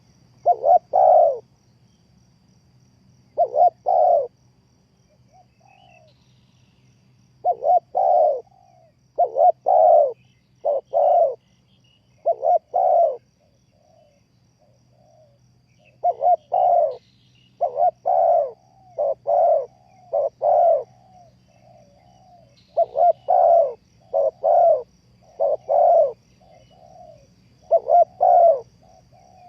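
Spotted dove cooing: groups of two to four deep coos, repeated every few seconds with pauses between.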